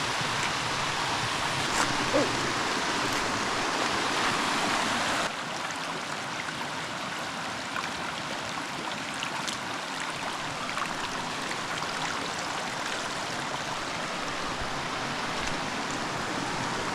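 Steady rush of flowing creek water. It drops to a quieter level about five seconds in.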